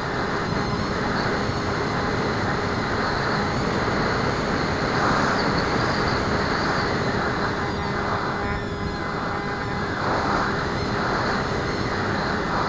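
Bixler foam RC plane's electric pusher motor and propeller running steadily in flight, a constant drone over a rush of air noise, heard from on board.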